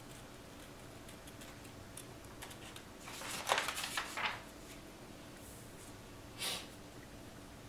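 Scissors snipping paper with faint clicks, then a louder rustle of the paper sheet and scissors being handled for about a second and a half, starting about three seconds in, and one more short paper rustle about six and a half seconds in.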